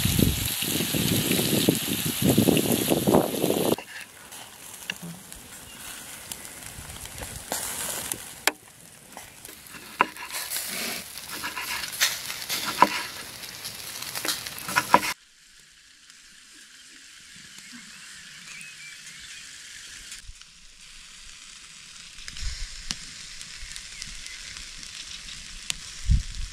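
Vegetables sizzling in a frying pan. About four seconds in, the sound cuts to a knife slicing tomatoes on a wooden cutting board, with light sharp taps. About fifteen seconds in, it cuts again to a faint steady sizzle with a few soft knocks near the end.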